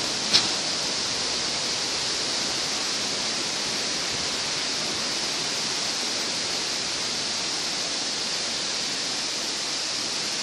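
Steady rush of a rocky stream flowing over and between boulders, with one sharp click about half a second in.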